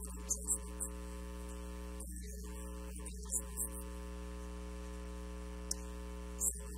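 Steady electrical mains hum with a stack of overtones, broken by several brief, faint, high hissy ticks.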